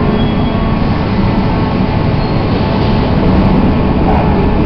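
Budapest M1 Millennium Underground train running along the platform: a steady, loud rumble that swells a little about three seconds in.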